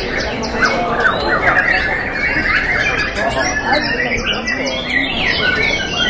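Many caged white-rumped shamas singing at once, a dense, unbroken mix of overlapping chirps, trills and whistled sweeps, with people's voices underneath.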